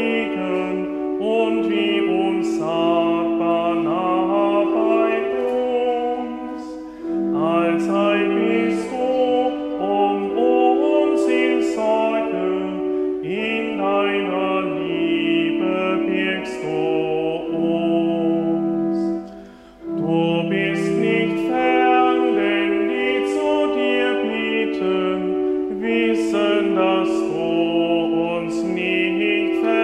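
Church hymn sung with organ accompaniment: slow held notes moving in a stepwise melody, phrase by phrase, with two short breaks between phrases, about seven seconds in and just before twenty seconds.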